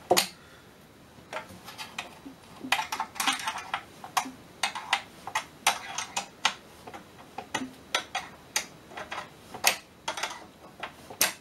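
Irregular metallic clicks and taps from a small 7 mm wrench working the screw of a metal strap clamp, with the sharpest click just after the start and closer-spaced clicks in the middle.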